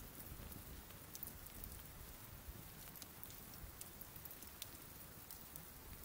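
Smouldering wood bonfire crackling faintly: a few sparse, sharp pops from the burning logs over a soft, even hiss.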